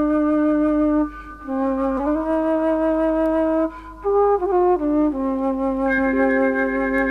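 Music of long held notes in several parts, pausing briefly twice.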